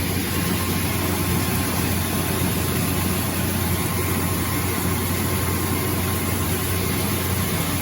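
Shin Nong rice mill running steadily while milling rice, driven by its single-phase electric motor: a constant machine hum and whir with no change in pace.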